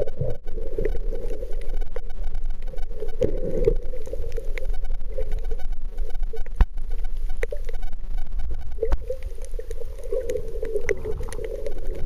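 Underwater ambience on a snorkeler's camera: a steady low rumble of moving water with a wavering mid-pitched wash and scattered sharp clicks.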